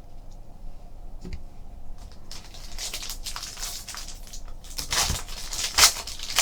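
Crinkling and rustling of a trading-card pack wrapper being torn open and handled. It starts about two seconds in and is loudest near the end.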